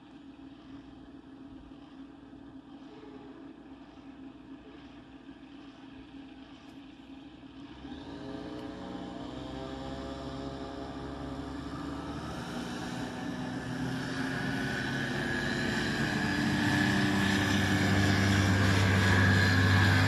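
Ikarus C42 microlight's propeller engine, a faint steady hum at first, then growing steadily louder from about eight seconds in.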